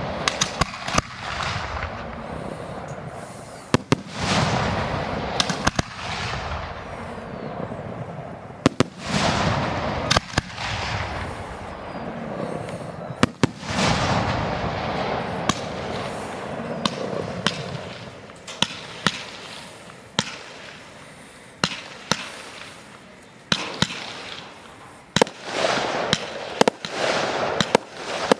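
Fireworks display: aerial shells bursting with sharp bangs, each followed by a long crackling, hissing fall-off, several bursts coming in quick clusters.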